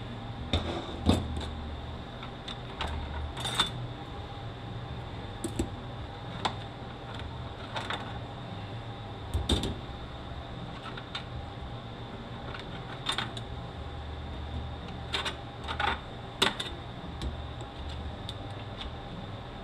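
Metal parts of a 6T70E automatic transmission clinking now and then as they are handled and lifted out of the case, about a dozen separate clinks, over a steady low hum.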